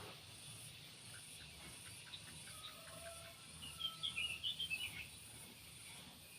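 Outdoor insects keep up a steady, softly pulsing high trill, and a bird gives a quick burst of twittering chirps about four seconds in.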